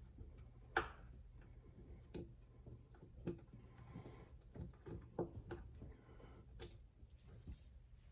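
Irregular light clicks and taps of a Torx T15 screwdriver working a screw out of a dishwasher's chopper assembly cover, with a steady low hum underneath.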